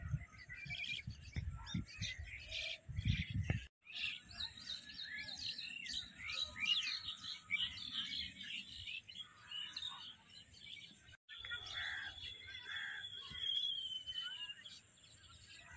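Many birds chirping and calling over one another, with a thin high note held for about three seconds in the second half. A low rumble underlies the first few seconds.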